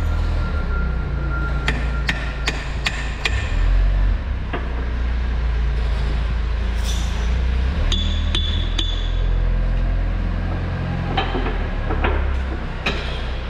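Sharp metal clicks and knocks from a wrench being worked on the hydraulic cylinder fitting of a loader's 4-in-1 bucket: a run of about five clicks a little under half a second apart about two seconds in, and a few more near the end. A steady low engine hum runs underneath.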